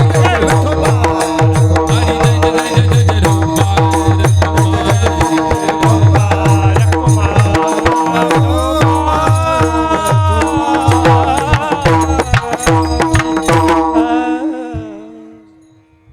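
Marathi kirtan music: a voice singing over a steady held drone, with rapid hand-drum strokes and sharp metallic strokes keeping the rhythm. It all fades out about two seconds before the end.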